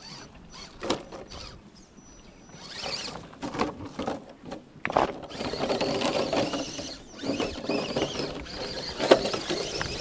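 Scale RC rock crawler's electric motor and geartrain whining as it crawls over boulders, with its tyres and chassis scraping and clattering on the rocks. A sharp knock about five seconds in comes as the truck tumbles over onto its roof, and more knocks follow near the end.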